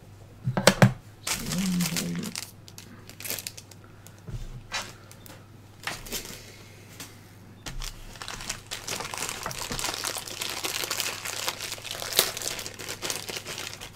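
Clear plastic packaging bag being handled and crinkled, with a few sharp knocks in the first second. The crinkling becomes continuous from about eight seconds in.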